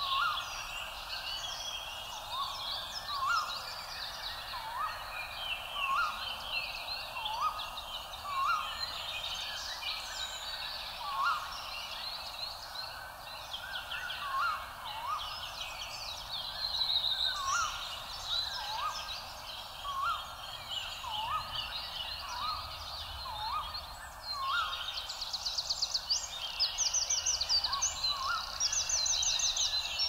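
Mixed chorus of birds singing and calling, with a short rising call repeated about once a second. Near the end the high chirping thickens into a dense, rapid chorus.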